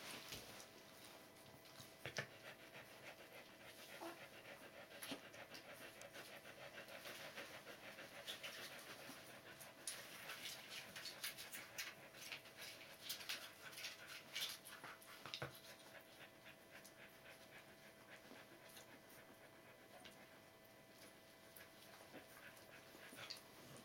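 Adult Border Collie panting faintly in quick, even breaths, strongest for several seconds in the middle.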